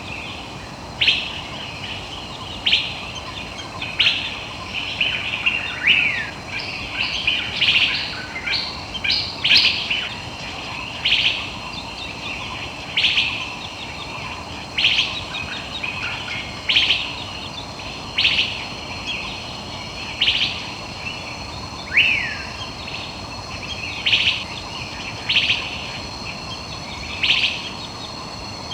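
A bird calling with short, bright notes repeated about every two seconds, briefly more often for a few seconds. A couple of falling whistled notes mix in, over a steady forest background hiss.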